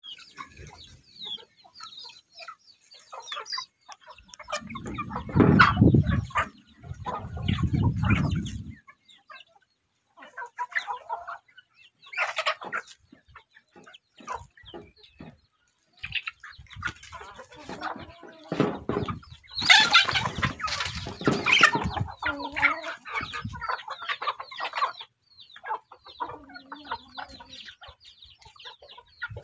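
A flock of free-range chickens clucking and peeping while foraging, with many short calls throughout. Two stretches of low rumble come in the first third, and a louder, noisier stretch about two-thirds through.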